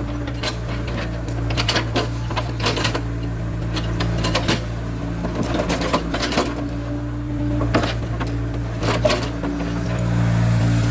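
Caterpillar 307C excavator's diesel engine running steadily under working load, with frequent sharp clacks and knocks over it. The engine builds up louder near the end.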